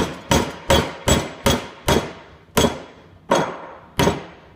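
Hammer driving a nail into wood: about nine sharp, ringing blows, quick and even at first and then spacing out near the end as the nail goes in flush.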